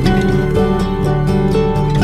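Background music: gentle plucked-string instrumental with a steady pulse of notes.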